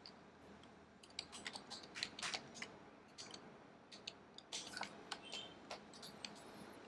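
Computer keyboard typing: a run of faint, irregular key clicks starting about a second in.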